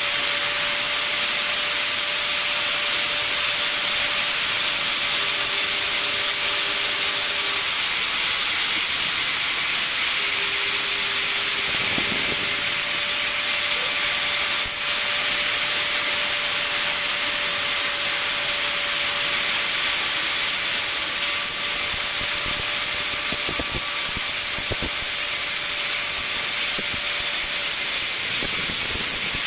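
CNC router spindle running and milling polystyrene foam: a loud, steady hiss of cutting with a constant high whine from the spindle. Twice, a lower tone sounds briefly.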